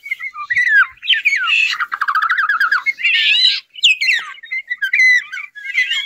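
Golden oriole calls: a run of harsh squawks and short gliding whistles, with a fast rattling trill about two seconds in.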